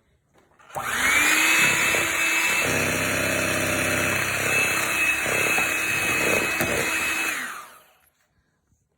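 Electric kitchen mixer beating cake batter: the motor spins up about a second in with a rising whine, runs at a steady speed for about six seconds, then winds down and stops.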